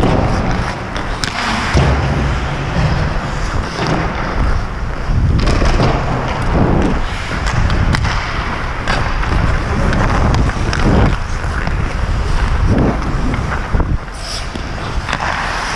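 Ice hockey skate blades scraping and carving across the ice in repeated strides, close to the microphone, with wind rumbling on the microphone. Several sharp knocks of stick and puck are scattered through it.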